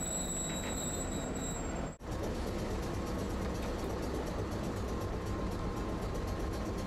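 Tosaden streetcar running, a steady rail rumble. A thin high whine sounds over it for the first two seconds. The sound drops out for an instant about two seconds in, then the running noise carries on.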